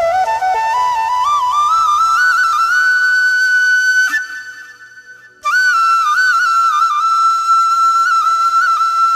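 Solo flute melody: a phrase climbing step by step with quick ornaments, a break of about a second midway, then a second phrase held high with small trills.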